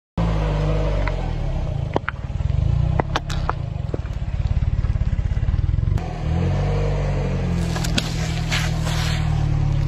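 A car engine running at low speed as its tyre rolls over toothpaste tubes, with several sharp cracks and pops as the tubes are crushed a few seconds in. Near the end a juice carton bursts under the tyre with a pop and a short spraying hiss.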